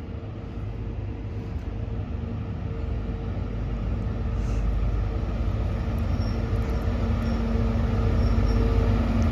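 Diesel engine of a Class 43 HST power car running as the train pulls into the platform: a low rumble with a steady hum that grows louder as it approaches.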